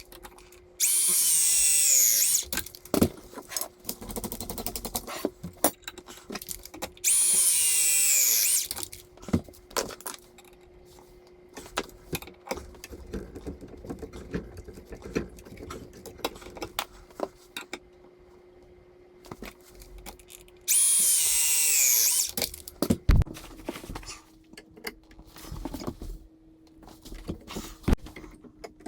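Cordless power tool run three times in short bursts of about two seconds each, its whine falling in pitch as each run loads up, with clicks and knocks of pipework and tools being handled in between.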